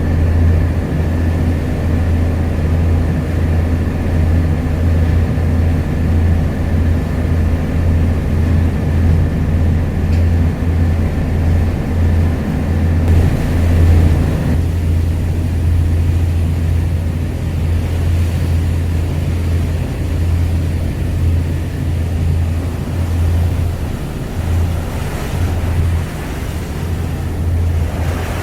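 A steady, loud, low engine drone of a vehicle, with a constant hum and some broad hiss over it that changes in character about halfway through.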